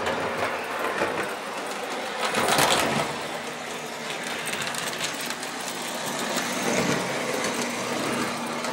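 Lionel 249E tinplate O-gauge locomotive running on three-rail track: a steady mechanical whir of its electric motor and gears, louder and rougher for a moment about two and a half seconds in. It runs smoothly at only about 9 volts, a sign the old motor is in good order.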